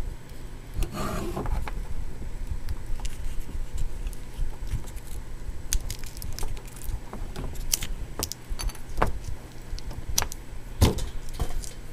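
Hands handling a die-cast scale model and its styrofoam packing: scattered irregular clicks, taps and short scrapes as the packing is worked loose.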